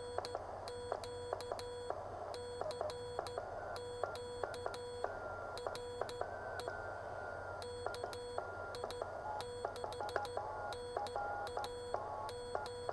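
Morse code (CW) tones beeping on and off in irregular short and long elements over receiver hiss, from the small speaker of a pocket uSDX-clone HF transceiver. The tone is mostly at one pitch and now and then a higher one, with light clicks as it keys.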